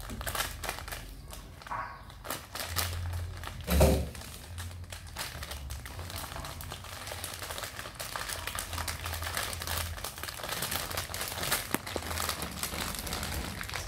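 Plastic crinkling and crackling irregularly as kittens move about in it, with one louder thump about four seconds in.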